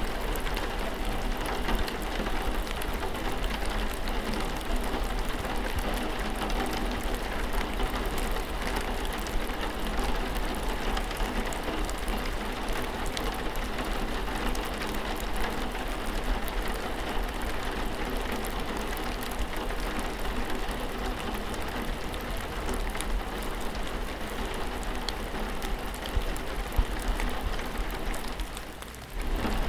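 Steady rain falling. The sound dips for a moment near the end, then returns.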